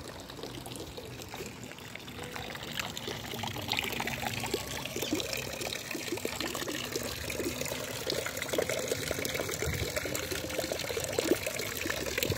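Water from a stone wall fountain's spout pouring and trickling steadily into its stone basin, with irregular small splashes.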